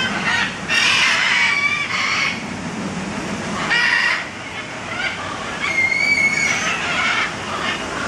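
Parrots squawking: harsh, screechy calls in bursts, a long run of them about a second in, another near the middle and more toward the end.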